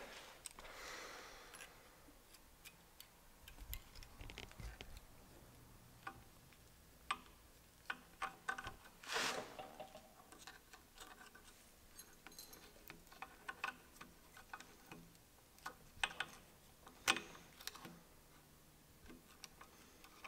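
Light, irregular metal clicks and ticks as a header-wrap clamp tool is twisted to cinch a locking clamp tight around a heat-wrapped exhaust tube. There is a short scraping rustle about nine seconds in.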